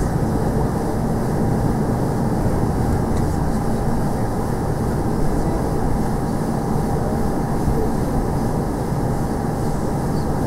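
Steady rumble and hiss of an airliner taxiing after landing, heard inside the passenger cabin, with its jet engines at low power.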